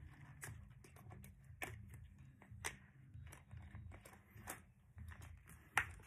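Plastic Hot Wheels track pieces clicking and knocking as they are handled, a scattering of light clicks with the sharpest one near the end.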